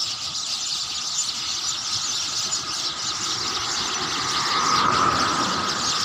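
A flock of small birds chirping and chattering in the trees: a dense, continuous chorus of shrill calls, with a lower, steadier call swelling about five seconds in.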